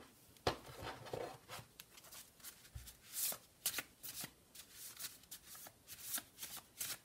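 A small stack of plain white paper cards being shuffled by hand: a string of short, irregular papery rubbing and flicking strokes.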